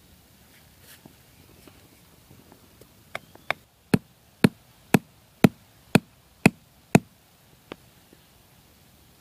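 A run of sharp knocks, about two a second, nine in a row: two light ones, then seven loud and evenly spaced, followed by one faint knock.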